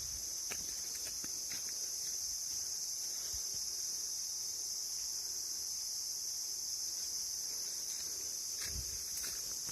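Steady, high-pitched chorus of insects droning without a break, with a few faint clicks and a low thump near the end.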